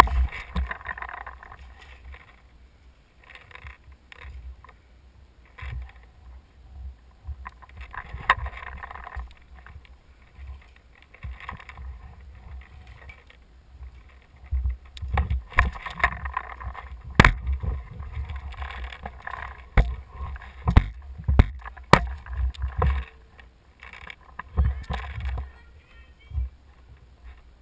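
Footsteps crunching and clattering over rubble of broken roof tiles and wooden laths, with irregular sharp knocks of wood and debris, busiest from about 15 to 23 seconds in, over a low rumble.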